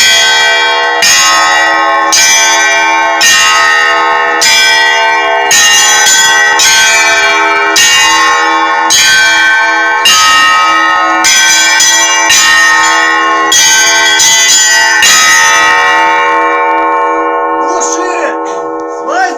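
Church bells rung by hand in the Russian manner, several bells struck together about once a second with their tones ringing on between strokes. About sixteen seconds in the strokes stop and the bells ring out, fading.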